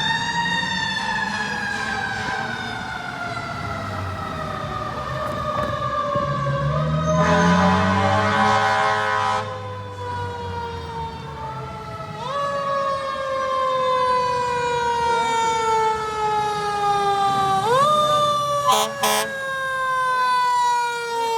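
Federal Q2B mechanical siren on a fire truck, a long wail falling slowly as it coasts down, wound up again twice and left to fall each time. A blast of air horns about seven seconds in lasts a couple of seconds, and two short sharp bursts come near the end.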